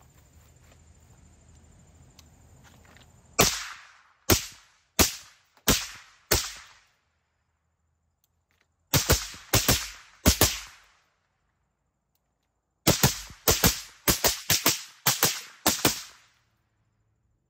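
Suppressed gunfire from an 11.5-inch carbine fitted with a DDC Enticer S suppressor. There are three strings of sharp cracks: five evenly spaced shots, then four, then about ten fired quickly.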